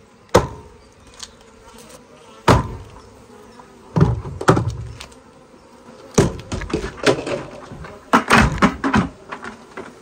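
Honeybees buzzing while a plastic bucket is handled and tipped over a wooden hive box: a series of sharp knocks and thumps, coming faster near the end.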